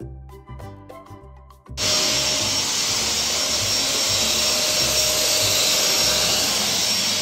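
Drum-type canister vacuum cleaner running steadily, a loud even rushing noise with a faint whine on top, coming in suddenly about two seconds in.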